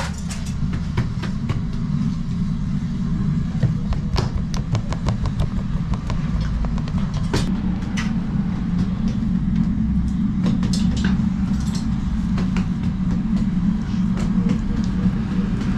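Steady low rumble of a gas-fired tandoor burner, with scattered sharp clicks and knocks of metal tools and trays.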